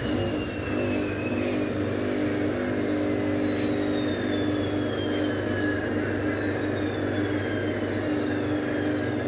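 Washing machine on its spin cycle: a steady drum-and-motor hum with a strong high squeal that slowly falls in pitch throughout, the loud squeaking during spin that the owner questions as abnormal.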